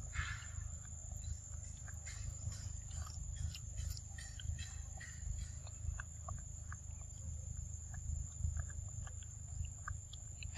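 Tropical forest ambience: a steady high insect drone with many short, scattered chirps and clicks, over a low, fluctuating rumble.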